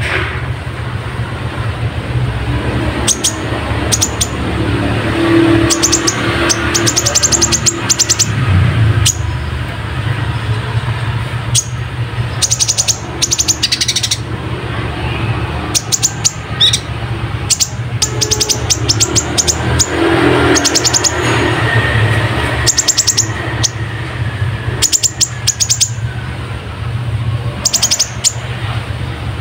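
Kolibri ninja sunbird singing in rapid, high chattering trills, repeated in short runs, with mimicked house-sparrow chirps worked into the song. A steady low rumble runs underneath.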